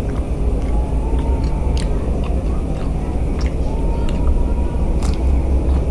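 Crunchy bites and chewing of a raw napa cabbage leaf, a scatter of short sharp crunches, over a steady low rumble.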